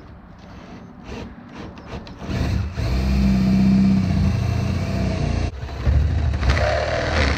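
Cordless drill boring a 1-inch hole through a jon boat's carpeted wooden deck, running steadily under load. It starts about two seconds in, stops briefly about five and a half seconds in, and starts again.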